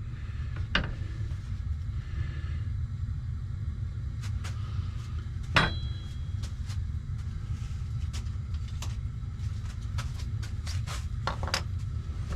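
Steady low grumble of a water heater running, with scattered light clicks and taps of tools and wood being handled on a workbench. One sharper tap about five and a half seconds in rings briefly.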